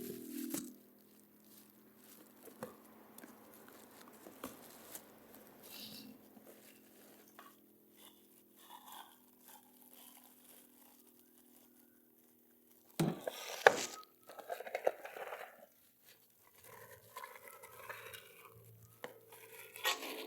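Faint handling sounds: scattered light clicks and soft rustling, with a louder burst of crinkling and a sharp knock about 13 seconds in.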